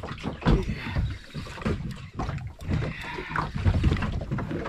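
Water slapping and sloshing against the hull of a small boat, with uneven low buffeting from wind on the microphone.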